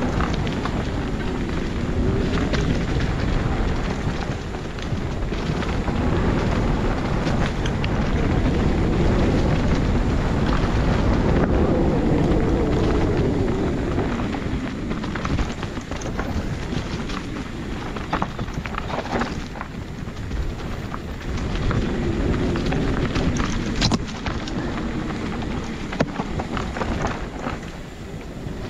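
Wind buffeting the microphone over the rolling rumble and rattle of a mountain bike riding down a dirt singletrack, with a few sharp knocks in the later part.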